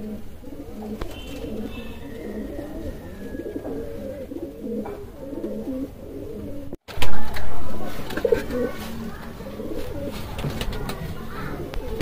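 Domestic pigeons cooing, with low overlapping coos throughout. About seven seconds in the sound cuts out for a moment and comes back with a brief loud burst.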